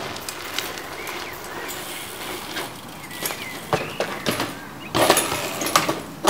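BMX bike tyres rolling on rough concrete with scattered clicks, then a crash: the bike clatters down and the rider hits the concrete ramp, with several loud knocks about five seconds in.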